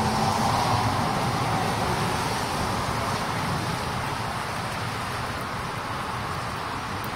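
Car tyres hissing on a wet road, loudest about a second in and slowly fading.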